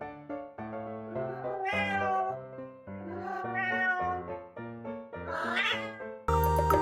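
A cat meowing three times, the calls drawn out and bending in pitch, over background music with evenly paced notes. Near the end a louder, different piece of music cuts in.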